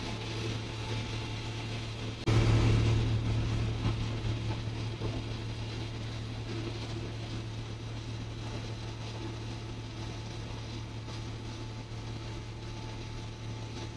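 Steady drone of shipboard machinery, a low hum under a hiss. It turns abruptly louder about two seconds in, then eases back to the steady level.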